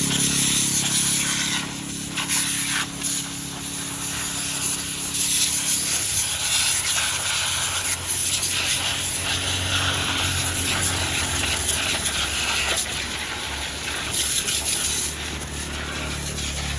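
High-pressure water jet spraying against a JCB 3DX backhoe loader, a steady hiss, with an engine running underneath whose note drops lower about six seconds in.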